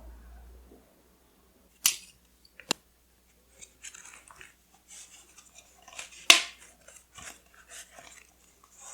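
Paper and stationery being handled: soft scattered rustling broken by a few sharp clicks, twice early and loudest about six seconds in.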